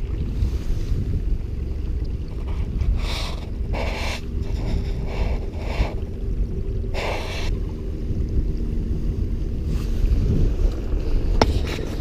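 Wind buffeting the microphone of a body-worn camera, a steady low rumble, with a run of short rushing bursts of noise in the middle.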